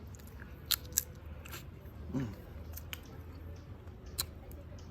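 Crab shell and legs cracking and crunching as a person bites and chews them: a handful of sharp, separate cracks spread over a few seconds.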